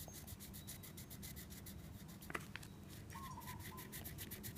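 Colouring on paper: quick, even back-and-forth strokes of a colour rubbed on by hand, several strokes a second, with one light tap about halfway.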